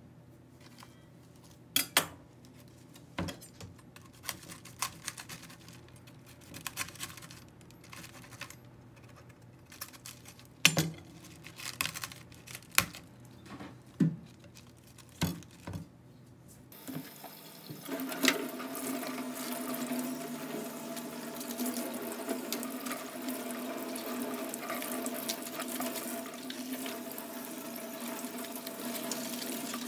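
Kitchen tap running into a stainless steel sink, turned on about halfway through and running steadily, as cabbage leaves are rinsed in a wire colander. Before it, scattered clicks and knocks as a cabbage is handled on a plastic cutting board.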